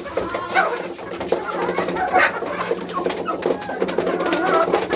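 A flock of chickens clucking and calling, many short overlapping calls at once.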